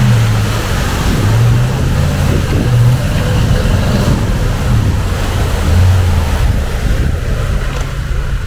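Toyota Tundra's 5.7-litre V8 revving up and down several times as the pickup churns through deep mud, with its tyres spraying mud and water.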